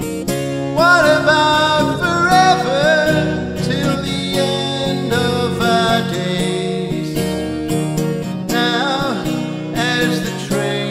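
A man singing to his own strummed acoustic guitar, a Freshman cutaway.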